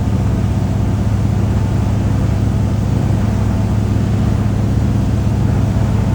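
Motorboat engine running at a steady speed, a constant low drone heard from aboard.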